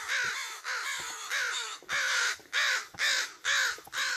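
Several crows cawing, with harsh calls repeated over and over: overlapping at first, then about two caws a second. The crows are yelling at a person walking below them as they follow her around.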